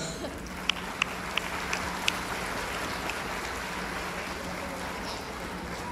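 Audience applauding in an auditorium, with five sharp nearby hand claps at about three a second in the first two seconds, over a steady low hum.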